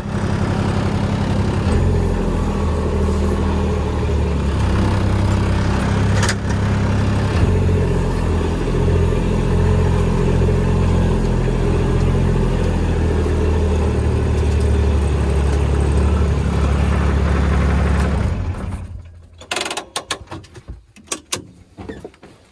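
Side-by-side utility vehicle's engine running as it drives slowly along a woodland trail, heard from inside the cab. The engine shuts off about three-quarters of the way through, and a few short clicks and rustles follow.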